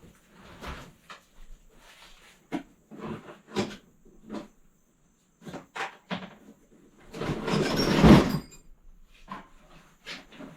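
Rummaging through stored clutter: items knocked, lifted and shifted in irregular clunks and clicks, with a louder scraping, rustling slide lasting about a second around seven seconds in.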